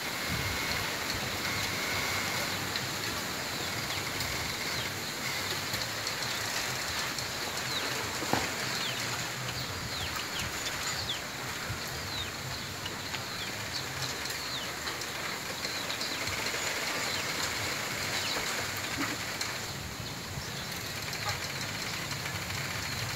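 Wind rustling steadily through a bamboo grove, with one sharp knock or crack from the stems about eight seconds in.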